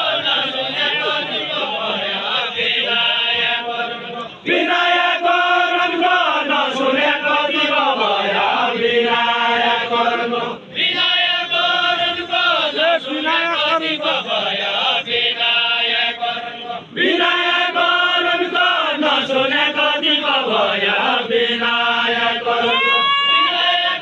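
Deuda folk singing: voices chanting a sung verse in phrases of about six seconds, each phrase followed by a short breath-break.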